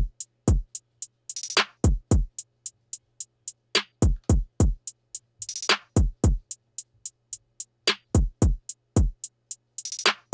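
Electronic drum-machine beat sequenced in Maschine: deep kicks that drop in pitch, fast steady hi-hat ticks, and a hissing cymbal-like roll about every four seconds, over a low steady hum.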